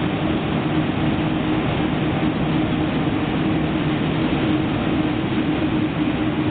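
Freight train hauled by an electric locomotive rolling across a steel truss railway bridge: a steady rumble with a low hum.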